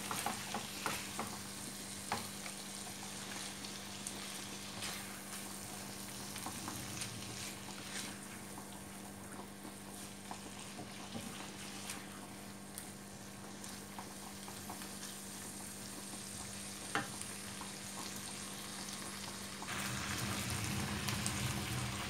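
Chicken pieces sizzling as they fry in oil in a pan, stirred with a spatula that scrapes and knocks against the pan now and then. A steady low hum runs underneath, and the sound grows louder near the end.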